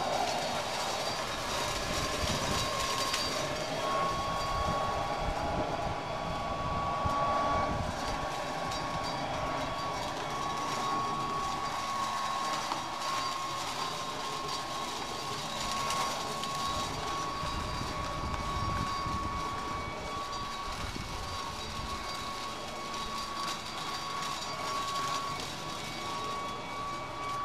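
WORX corded electric leaf blower-vacuum running at full speed, a steady motor whine over the rush of air, vacuuming up fallen maple seeds.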